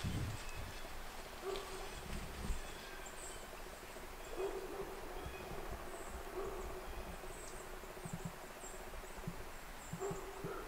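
Quiet winter-woods ambience: faint, short high bird chirps here and there over a faint steady hum, with a few soft rustles and knocks of the camera being handled, mostly at the start.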